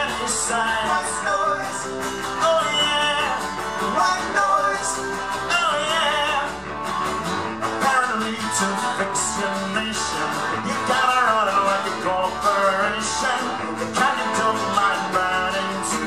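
Live acoustic band music: a man singing lead over strummed acoustic guitars.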